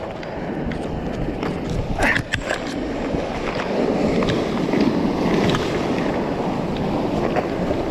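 Sea surf rushing and breaking against coastal rocks, a steady noise that grows louder in the second half, with a few sharp knocks about two seconds in.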